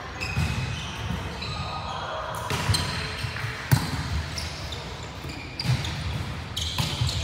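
Volleyball rally in a large gym: several sharp slaps of the ball being struck, the loudest about halfway through, ringing in the echoing hall.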